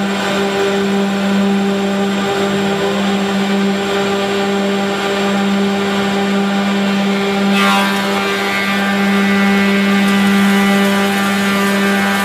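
Six-head wood moulder running, its cutterhead motors giving a loud, steady hum made of several even tones. About seven and a half seconds in, a higher whine sweeps in and the sound grows slightly louder.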